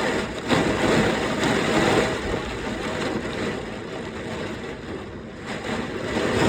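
Thunderstorm wind gusts with heavy rain: a loud, continuous rushing that is strongest in the first couple of seconds, eases off around the middle and builds again near the end.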